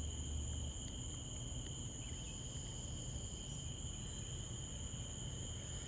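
A steady chorus of insects trilling in the woods: two unbroken high-pitched tones, with a faint low rumble beneath.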